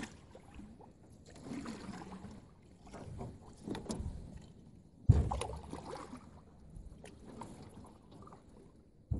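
Paddle strokes from a small paddled boat, swishing and splashing in the water every couple of seconds, with one sharp knock about five seconds in.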